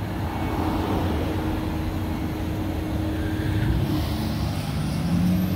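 Street traffic: a motor vehicle's engine running with a steady hum, then a second engine joining near the end.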